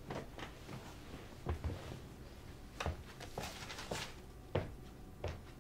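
Scattered soft rustles and light taps of paper and a clipboard being handled, over quiet room noise.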